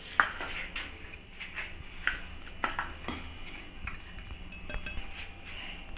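Light, scattered clinks and scrapes of steel on a steel plate as ground spice mix is tipped out of a mixer-grinder jar and worked on the plate, with a few sharper taps.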